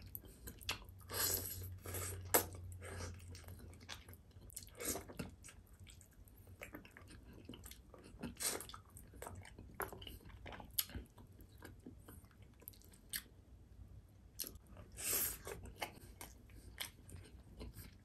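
Close-miked mukbang chewing: a man chewing a mouthful of food, with wet mouth clicks and smacks at irregular intervals.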